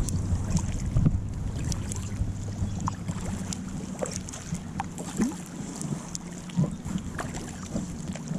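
Lake water lapping and splashing against the bow of an inflatable Intex Challenger kayak as it is paddled, with irregular small splashes throughout. A low wind rumble on the microphone eases about halfway through.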